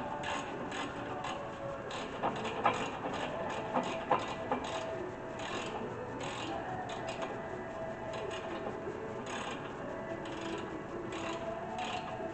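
Ratchet wrench clicking in repeated back-and-forth strokes, tightening a brake caliper bracket bolt with a 19 mm socket.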